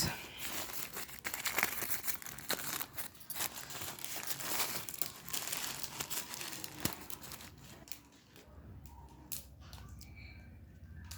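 Packaging crinkling and rustling as a piece of jewellery is unwrapped by hand, with scattered clicks. It is dense for about eight seconds, then thins to a few clicks.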